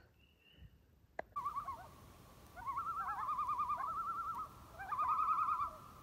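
Common loons calling: wavering tremolo calls in repeated phrases over a held note, starting after a brief click about a second in.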